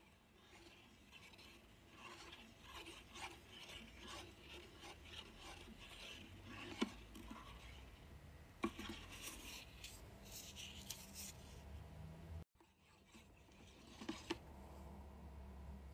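A wooden stick stirring melted wax in a metal melting pot, scraping and rubbing against the pot's side, with a few sharp taps where it knocks the metal.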